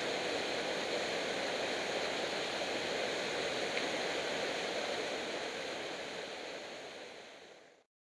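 A small waterfall on a mountain torrent pouring into a rock pool: a steady, even rush of white water that fades out over the last second or so and stops.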